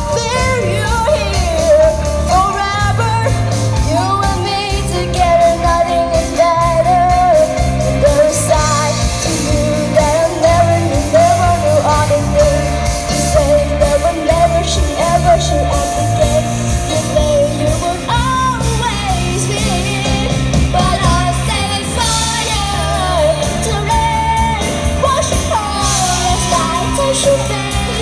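A rock band playing live, with a singer carrying a melody over steady bass and drums.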